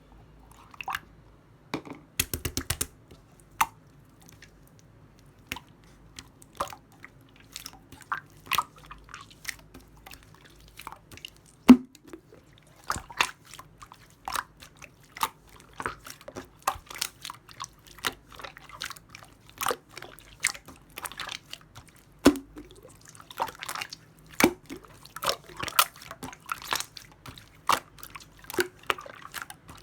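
Clear slime being squished and pressed by hand, making irregular wet clicks and pops, with a quick run of clicks about two seconds in and one loud pop near the middle.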